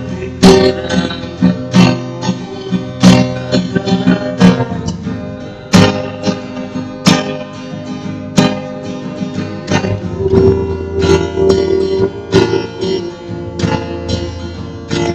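Acoustic guitar strummed, chords ringing. Strong strokes come about every second and a half, with lighter strokes between them.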